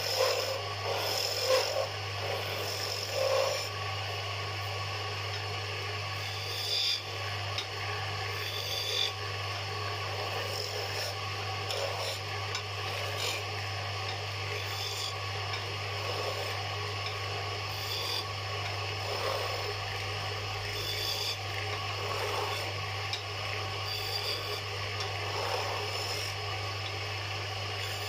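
Wood lathe running with a steady motor hum while a turning tool cuts the spinning wooden spindle, a continuous rasping scrape, with a few louder cuts in the first few seconds.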